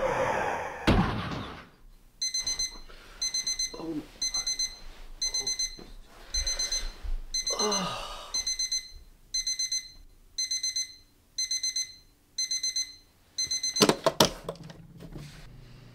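Digital bedside alarm clock beeping in quick groups of four, about one group a second. A hand slaps the clock near the end with two loud knocks, and the beeping stops. A loud rushing noise with a thud fills the first second or so.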